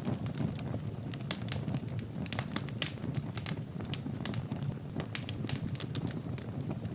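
Fire burning in a fireplace, crackling with many sharp, irregular pops and snaps over a steady low rumble of flames.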